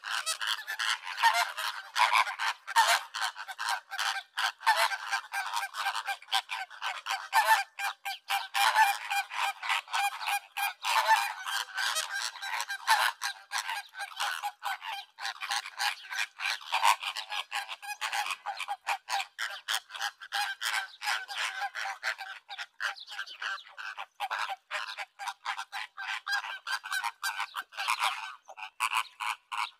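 A colony of greater flamingos calling: a dense, continuous chorus of many short, overlapping calls.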